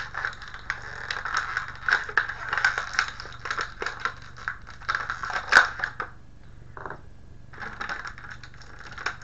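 Thin clear plastic packaging bag crinkling and crackling as fingers work it open, dense for about six seconds, then easing off before a little more rustling near the end.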